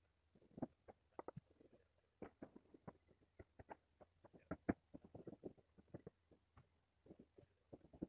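Faint, distant shotgun fire from waterfowl hunters on the opening morning of duck season: an irregular scatter of many short pops and thuds, several a second at times and sometimes bunched together.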